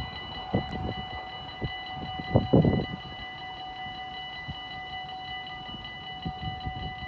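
Level-crossing warning bell ringing with a rapid, even electronic beat while the barrier arms lift, the train having just passed. A few low thumps and a rumble come in the first three seconds, loudest about two and a half seconds in.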